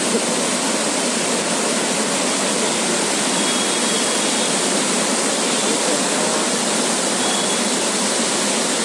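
The Kunthipuzha river in flash flood: a steady, loud rush of fast-flowing floodwater.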